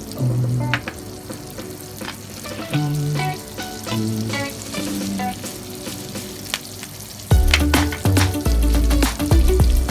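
Food frying and sizzling in a pan while a utensil stirs it, with frequent short clicks of the utensil against the pan.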